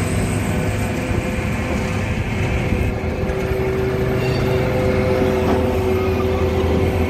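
Diesel freight locomotive passing close by: a steady low engine rumble, with a steady whine coming in about four seconds in.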